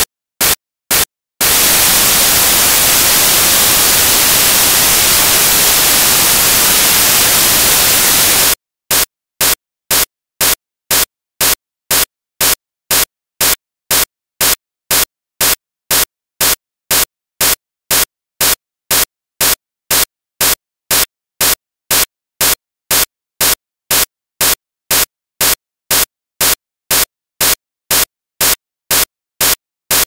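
Electronic noise signal: short bursts of hiss about twice a second, broken by about seven seconds of continuous loud white-noise hiss beginning about a second and a half in, after which the bursts resume.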